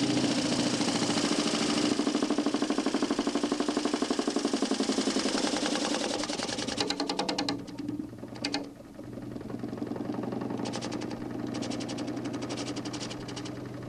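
DC motor spinning a large plywood Nipkow scanning disc, a steady hum under a fast, even rattle. The sound dips in level a little past halfway, with a sharp click, then carries on with a slightly different rattle.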